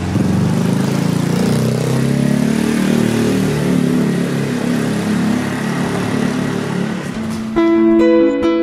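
A motor scooter's engine running as it approaches, its pitch wavering and climbing. About seven and a half seconds in, acoustic guitar music starts.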